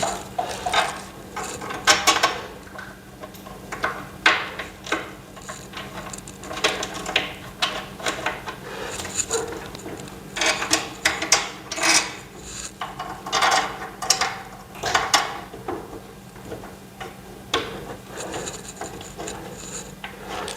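Irregular scraping, rubbing and clicking as the parts of a steel-framed MDF TV stand are handled and fitted together, in clusters every second or two, with a faint steady hum underneath.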